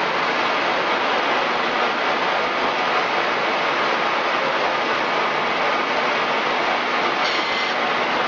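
Okuma CNC machine tool running while machining a crankshaft: a loud, steady rushing hiss with no distinct strokes or rhythm.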